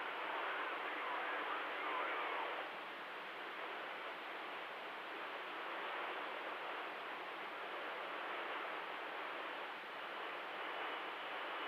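Cobra 2000 CB radio receiver hissing with open-channel static between transmissions, the narrow, tinny band of radio audio. A faint, unreadable signal sits under the hiss for the first two or three seconds, after which the hiss dips slightly.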